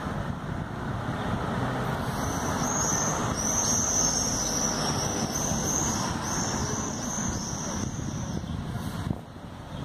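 Steady city street traffic noise. A high-pitched warbling sound runs over it from about two seconds in until near the end.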